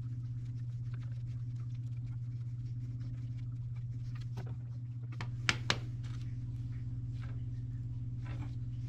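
Threaded gas pipe fittings being turned and handled by hand, with light metallic clicks and scrapes and two sharp clinks close together about five and a half seconds in, over a steady low hum.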